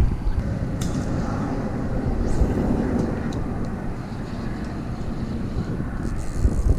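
Steady rumble of a passing vehicle, with a few faint clicks.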